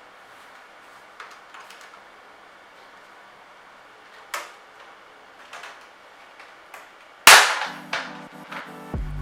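Scattered sharp clicks from mechanical keyboard parts being handled and fitted during a build. About seven seconds in comes one loud sharp crack that dies away over half a second, and music with a steady bass comes in right after it.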